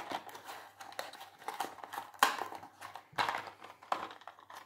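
Faint, irregular crinkling and light clicks of medicine packaging being handled.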